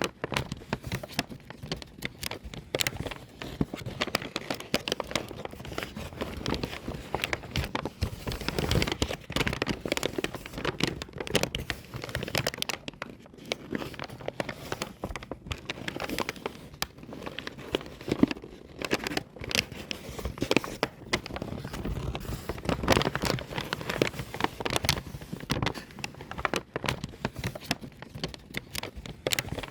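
A paper bag being crumpled and crinkled by hand: a continuous, irregular stream of sharp crackles and rustles.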